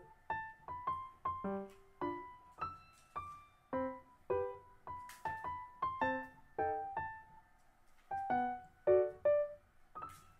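Background music: a light keyboard tune of short, separately struck notes, about two or three a second, each fading quickly.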